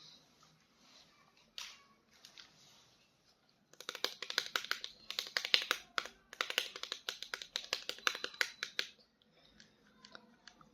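Rapid, dense clicking and crackling of plastic being handled, running for about five seconds from nearly four seconds in, after a few scattered clicks.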